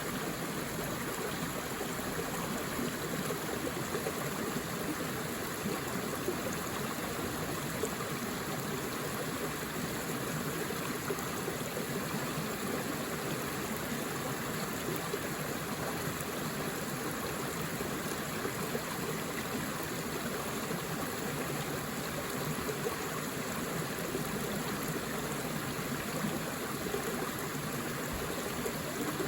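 Forest stream flowing steadily over rocks, a continuous rushing and burbling of water.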